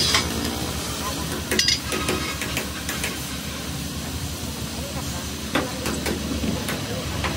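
Repair-shop noise: a steady low hum and hiss, with a few sharp knocks about a second and a half in and again near the end.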